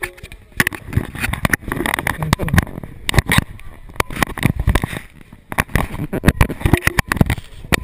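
Fingers handling a GoPro action camera right at its microphone: irregular knocks, clicks and scrapes against the housing, with a rumble.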